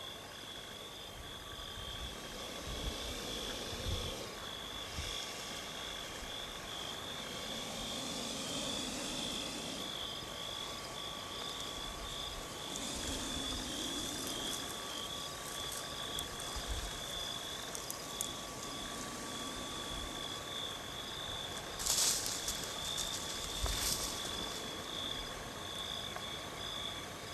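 Night-time chorus of calling animals: a steady, high, rapidly pulsing chirp with a fainter lower steady trill under it, broken by a few soft low bumps and two brief hissing bursts near the end.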